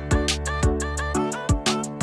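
Background music with a steady kick-drum beat and hi-hats over sustained chords.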